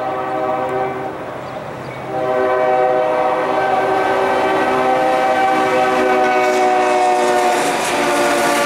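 CSX freight locomotive's multi-tone air horn sounding for a grade crossing: one blast breaks off about a second and a half in, then a long, louder blast from about two seconds in, dipping slightly in pitch near the end as the locomotive passes. The rumble of the passing train grows under the horn at the end.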